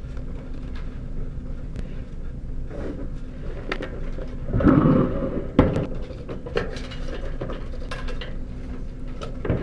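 Objects handled on a desk: a pen and a card set down and moved about, with scattered light knocks and clicks, a scuffing stretch about halfway through and one sharp knock just after, over a steady low hum.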